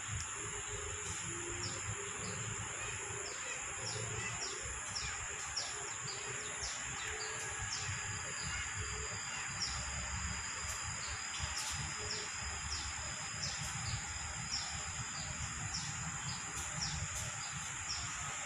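Insects droning in a steady high-pitched hum, with many short repeated chirps scattered throughout and a low rumble underneath.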